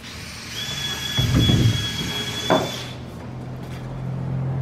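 A handheld power tool running with a steady high whine, which cuts off sharply about three seconds in. A dull knock comes partway through, and a low hum carries on after the tool stops.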